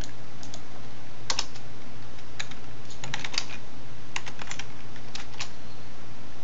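Typing on a computer keyboard: keystrokes in short irregular clusters of a few keys each, over a steady low hum.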